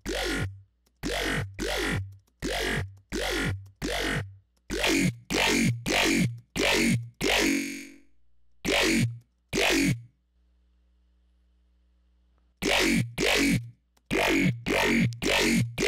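Aggressive dubstep bass one-shot synthesized in Xfer Serum, triggered over and over in short hits about two a second, each dropping in pitch. It holds one longer note partway through, then pauses for about two seconds before the hits resume.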